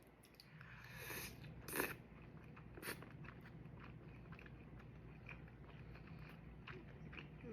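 Faint mouth sounds of someone biting into and chewing a chicken soup dumpling: a few soft smacks and clicks, the clearest about two and three seconds in.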